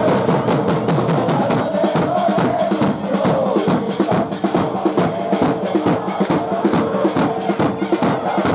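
A supporters' drum section beating large bass drums and snare drums in a fast, steady rhythm, with a crowd of football fans singing a chant over the drums.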